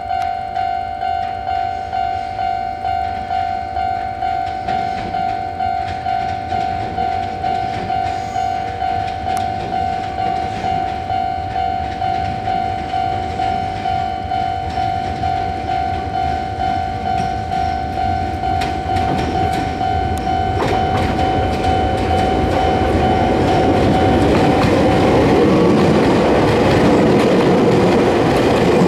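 A level-crossing warning bell dings steadily, about twice a second, while a Kobe Electric Railway 5000 series electric train approaches. About two-thirds of the way through the train's running noise rises and covers the bell, and near the end its wheels clatter over the rail joints as it passes close by.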